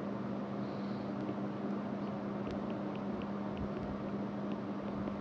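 Steady low electrical hum with hiss from the recording setup, with faint light ticks from a stylus writing on a tablet in the second half.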